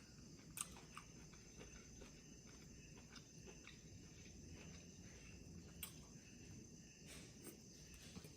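Near silence: faint eating sounds, soft scattered mouth clicks over a steady faint high-pitched hum.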